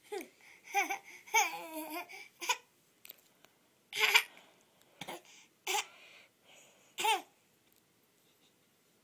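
Baby babbling and laughing in a string of short, high-pitched bursts.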